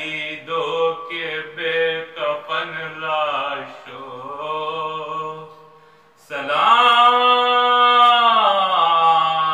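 A lone male voice reciting a salam, an Urdu mourning elegy for Muharram, unaccompanied in a slow chanting melody. Short sung phrases give way about six seconds in to one loud, long held note that rises, holds and falls away near the end.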